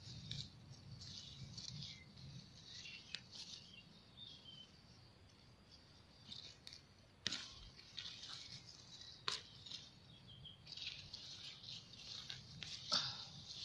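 Faint rustling of radish leaves and dry, crumbly soil as radishes are pulled up by hand, with two sharp snaps about two seconds apart near the middle.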